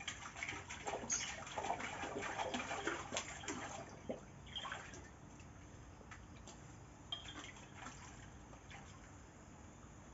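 A Thai ridgeback dog splashing about in a shallow clay basin of water, with busy splashing and dripping for the first few seconds. It then tails off to a few scattered splashes.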